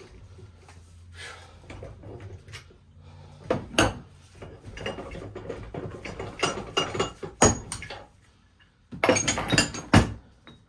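Astro 7865 ball joint press and its steel adapter cups being taken apart and handled: scattered metal clinks and knocks, with a cluster of louder clanks about nine seconds in.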